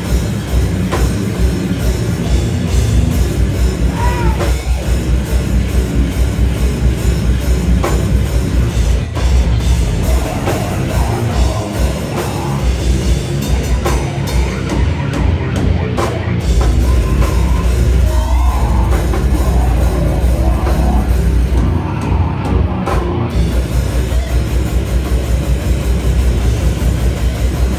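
Live slam death metal band playing loud and heavy: distorted guitars and bass over fast drumming, with vocals in places. The low end drops out briefly a few times, around the middle and about three quarters of the way through.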